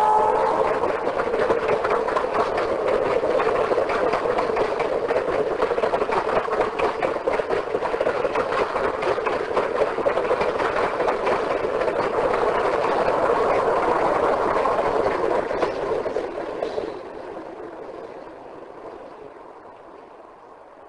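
A train rolling past, a steady rumble with fine rapid clatter of wheels on rail, fading away over the last few seconds.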